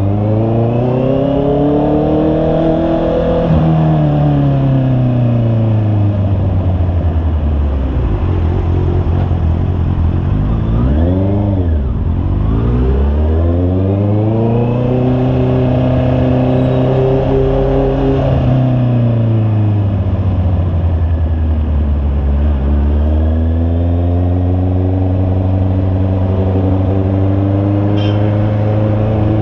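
Honda CB650R's inline-four engine under way, its revs rising and falling. It climbs over the first few seconds and eases off, gives a brief blip about eleven seconds in, makes a longer climb and fall midway, then holds steady near the end.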